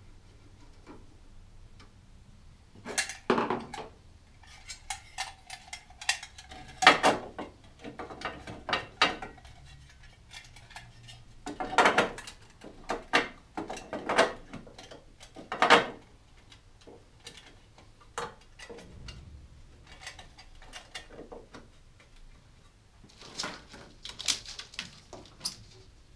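Scattered clicks, taps and light metallic clatter of hand tools and small wiring parts being handled while wires are disconnected, coming in short bursts with quieter gaps between.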